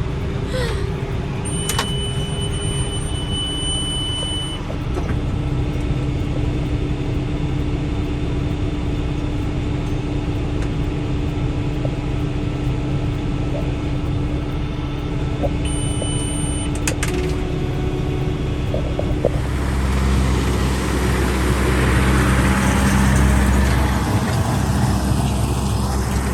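Farm tractor engine running steadily while pulling a round baler through hay. A high steady tone sounds briefly twice, about two seconds in and again about sixteen seconds in, and the engine sound grows louder and deeper about twenty seconds in.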